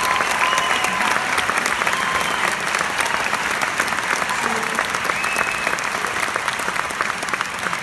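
Concert audience applauding, a dense steady patter of many hands clapping that slowly tapers off.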